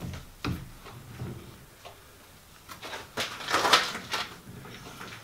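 Metal clicks and clunks from a lathe tool post being unlocked, swung round and re-clamped, with a louder run of metallic rattling and scraping about three seconds in.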